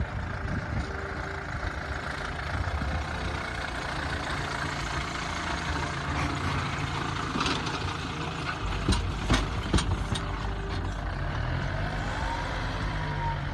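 2004 Peugeot Boxer camper van running with a steady engine rumble and road noise. A few sharp knocks or rattles come about two-thirds of the way through.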